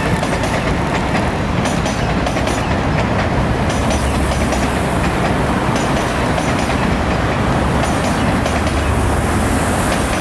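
CRH380CL sixteen-car high-speed electric multiple unit rolling past slowly as it pulls out of the station: a steady, loud rumble with irregular wheel clicks over the track.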